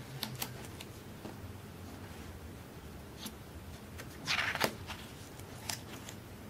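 Paper handling on a thick softcover photo book: light ticks and rustles as the pages are held, then one page turned over a little past the middle, a brief papery swish ending in a sharp tick.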